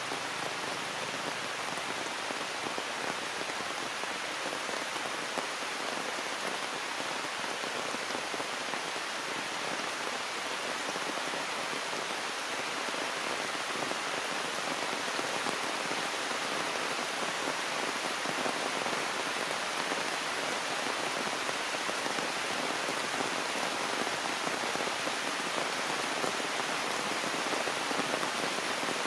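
Heavy rain falling steadily, an even hiss of countless drops, getting slightly louder toward the end.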